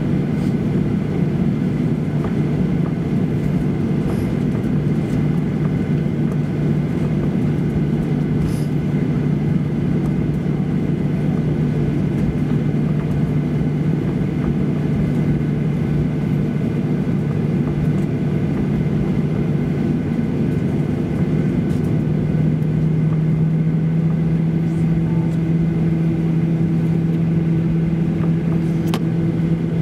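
Cabin noise of a jet airliner taxiing: the turbofan engines' steady hum with a rush of air. A little past twenty seconds in, the hum rises slightly in pitch.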